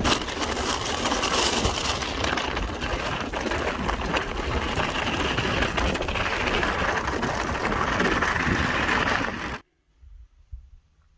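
A train passing close by, its wheels clattering on the rails in a continuous loud rush of noise. It cuts off abruptly about nine and a half seconds in.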